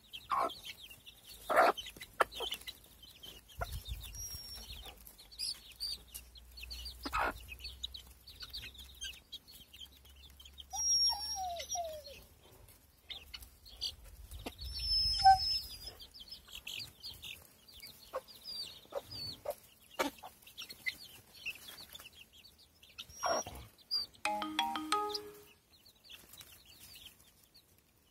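A flock of four-week-old chicks peeping continually in short high chirps, with adult hens clucking now and then as they peck at feed.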